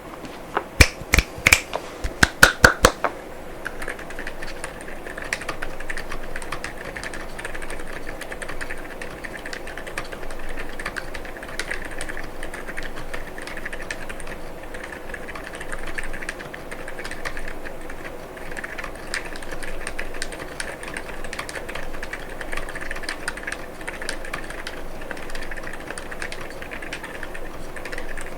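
Fast continuous typing on an Akko MU01 mechanical keyboard fitted with Gazzew Boba U4 silent tactile switches and PBT keycaps: a dense, fairly muted patter of keystrokes. It is preceded in the first three seconds by a quick run of about eight much louder, sharp clacks.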